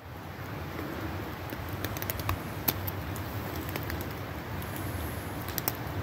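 Light rain falling in the woods: a steady hiss with a few scattered sharp drips.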